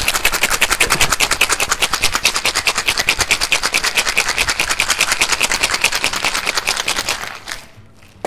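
Ice cubes rattling hard inside a copper cocktail shaker in a vigorous shake, a fast even rhythm of about eight knocks a second that stops near the end.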